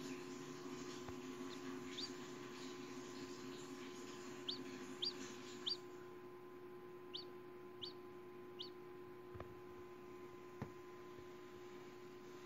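Hatching chicken chick peeping from its pipped egg: about seven short, high, falling peeps, a few in quick succession, over a faint steady hum.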